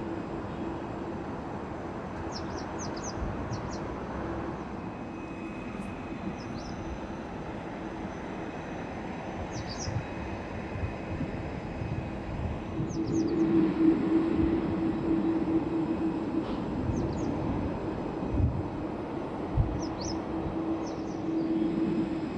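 Boeing 747-400 freighter's jet engines at taxi power: a steady hum over a low rumble, swelling louder about halfway through.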